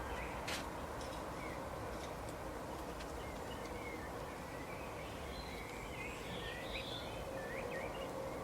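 Small birds chirping, many short chirps and glides throughout, over a steady background noise with a faint steady hum and a single click about half a second in.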